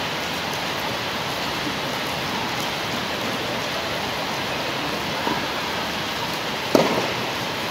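A tennis racket strikes the ball sharply once near the end, with a lighter hit a little before it, over a steady hiss.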